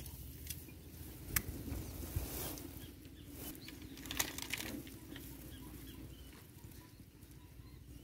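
Rustling and scattered light clicks and knocks as a fishing rod and tackle are handled in long grass, over a steady low rumble.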